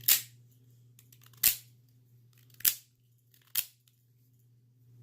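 Cheap out-the-front automatic knife firing its spring-driven blade out and back with a sharp snap each time, four snaps about a second apart.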